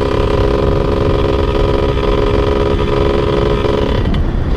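Motorcycle engine running at steady revs while riding, with wind rumble on the microphone.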